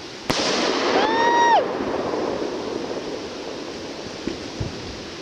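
A consumer firework goes off with a sharp bang. About a second later a high whistling tone holds for half a second and then drops away. Through it all a rushing hiss dies down slowly.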